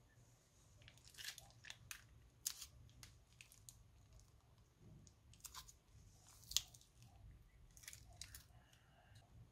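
Slime being squeezed out of a plastic piping bag into a bowl: faint, irregular sticky clicks and crackles, with one sharper click about two-thirds of the way through.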